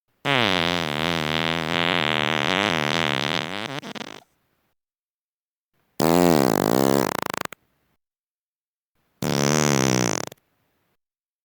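Three human farts with silence between them: a long one of about four seconds with a wavering pitch, then a shorter one whose pitch dips and rises again, then a short one of about a second near the end.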